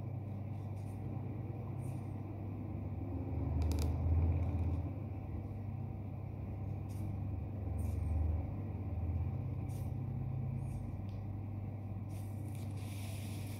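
A steady low hum, swelling twice, at about four and about eight seconds in, with brief faint scratches of a fine calligraphy pen writing nastaliq on paper; the longest scratch comes near the end.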